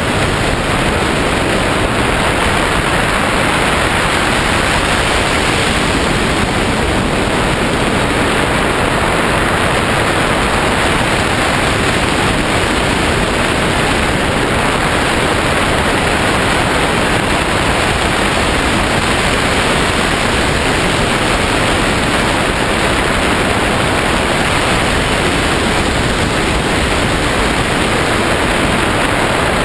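Loud, steady rush of wind over the camera's microphone on a hang glider in flight, an even noise with no let-up.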